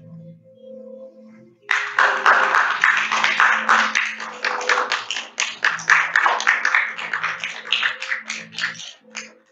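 Audience applauding: it starts suddenly about two seconds in and thins to a few scattered claps near the end. Soft ambient music with sustained bell-like tones plays underneath.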